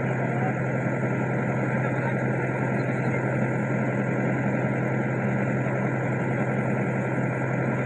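Diesel engine of a rice combine harvester running steadily at a constant pitch and level.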